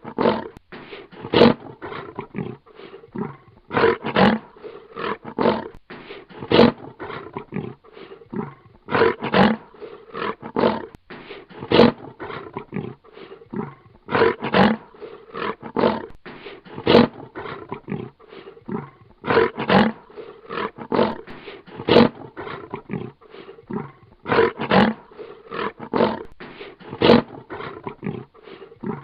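Lion growling in repeated bouts of short, heavy grunts, about two a second, each bout lasting a few seconds and returning every five seconds or so.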